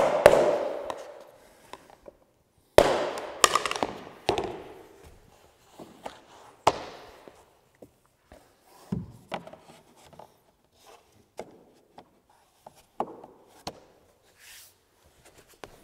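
Hammer knocking luxury vinyl planks together at their edges, with about six sharp strikes in the first seven seconds, each ringing briefly. After that come lighter knocks and rustles as planks are laid and pressed into place.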